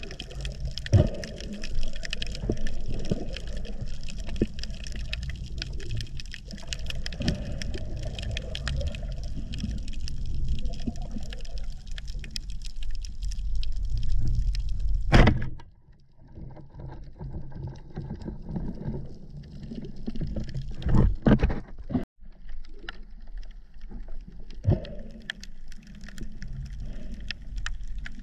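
Underwater sound heard by a camera mounted on a speargun: a steady low rumble of moving water under a constant crackle of small clicks. About halfway through comes a loud swish, after which it is quieter, with a few louder knocks.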